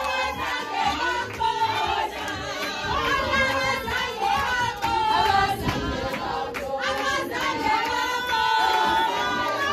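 A group of women singing together with hand-clapping.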